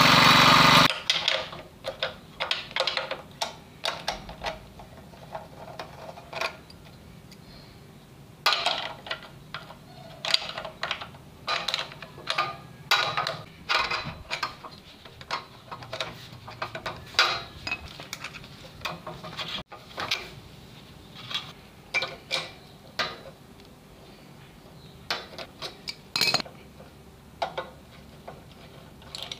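Small petrol engine of a portable water pump running, cut off about a second in. Then irregular metallic clinks, taps and rattles as the carburettor and air-filter housing are handled and worked on.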